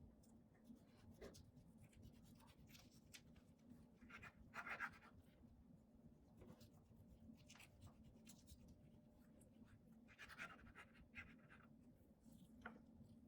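Near silence with faint, scattered small clicks and scratchy rustles, a few of them slightly louder about four to five seconds in and again around ten seconds in.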